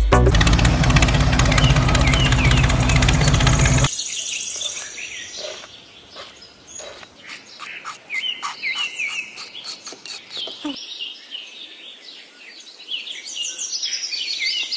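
Loud music that cuts off abruptly about four seconds in, followed by small birds chirping: many short, high, repeated calls.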